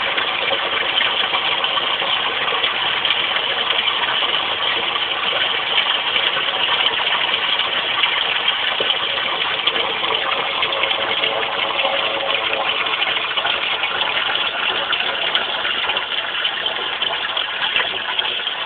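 Sump pump running steadily, a constant motor hum with water noise, as it pumps out the pit after about three inches of rain.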